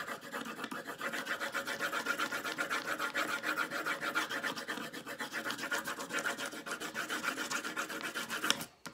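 Rapid back-and-forth scribbling of a colouring tool on paper, several rubbing strokes a second, as the paper is coloured in solid orange; the strokes stop briefly near the end.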